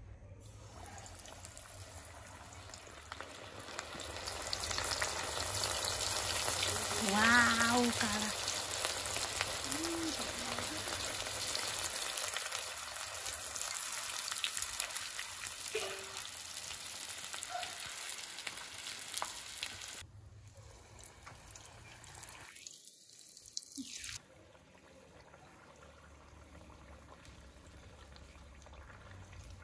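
Sel roti, a ring of rice batter, sizzling as it deep-fries in hot ghee in an iron wok. The sizzle swells a few seconds in as the batter hits the oil, then drops abruptly about twenty seconds in.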